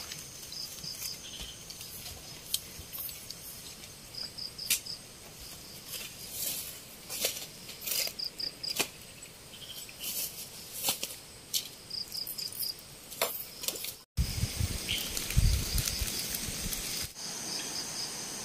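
Evening insect chorus: a steady high-pitched trill with short chirps repeating in threes and fours, and scattered sharp clicks. About fourteen seconds in it breaks off abruptly, and a couple of seconds of low thuds follow.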